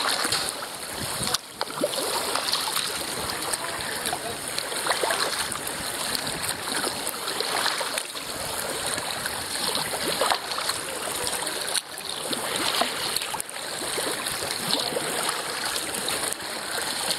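Water splashing and rushing along the hull of a 1999 Dagger Redline whitewater kayak as it is paddled, with paddle strokes dipping into the water.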